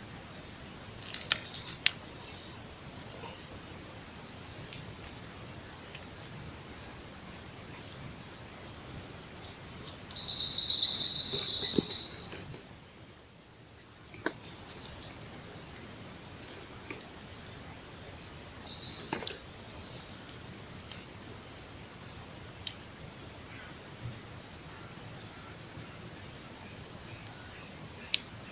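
Steady, high-pitched chorus of insects shrilling without a break. A louder buzzing call joins about ten seconds in for a couple of seconds; shortly after, the chorus briefly drops away and then resumes. A few faint clicks are scattered through.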